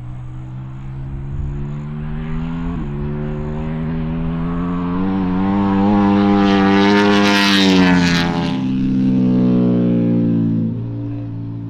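Ducati V2 race bike's twin-cylinder engine at high revs on track, growing louder as it approaches and passes, then fading. The pitch climbs slowly, steps once early on and drops near the end.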